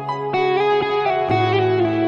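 Instrumental music: a guitar plays a melody of single notes, one of them bending in pitch, over held low bass notes.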